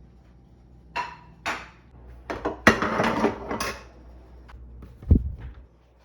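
Dishes and utensils clattering in a kitchen. Two clinks come about a second in, then a busier run of clatter, and a single dull thump near the end.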